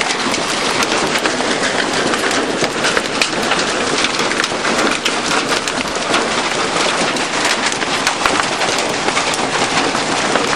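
Heavy hail pelting down, stones about the size of nickels, in a loud, steady, dense clatter of countless small impacts.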